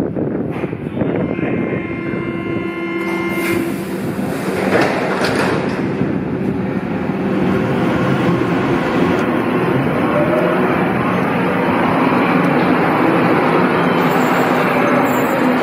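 Berlin U-Bahn train starting off from an underground platform. A held multi-tone signal sounds for a couple of seconds early on and a few knocks follow; then the train's motor and wheel noise builds as it pulls away, with a faint rising whine.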